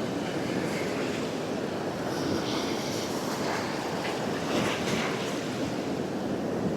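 North Sea surf breaking steadily on a sandy beach, with wind buffeting the microphone.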